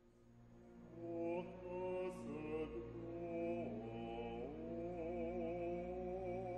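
Male classical singer singing a slow solo line in long, chant-like held notes with vibrato, entering about a second in, the pitch dropping and sliding back up midway. A soft low sustained accompaniment sits beneath the voice.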